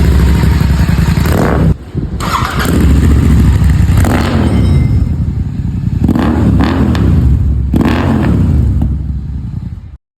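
Royal Enfield Continental GT 650's 648 cc parallel-twin running through a Red Rooster Performance aftermarket exhaust with its dB killer removed: a loud, deep exhaust note, blipped up to higher revs about four times and dropping back in between.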